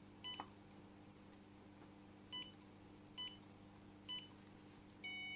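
WELOCK U71 smart lock beeping during fingerprint enrolment: one short beep for each press of the finger on the sensor, four of them at uneven spacing. Near the end a longer tune of several tones starts, the lock's confirmation that the fingerprint has been added.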